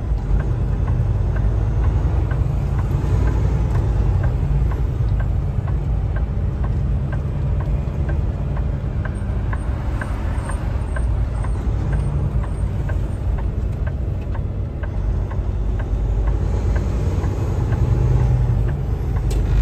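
Kenworth T680 semi truck heard from inside its cab: a steady low diesel engine and road drone while driving. A light ticking repeats about twice a second through the first two-thirds and then stops.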